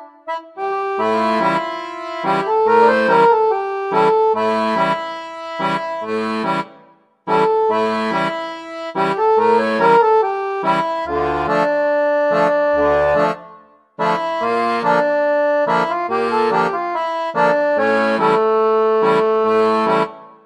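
Background music: an upbeat instrumental tune of quick melody notes over a stepping bass line, breaking off briefly twice and ending at the close.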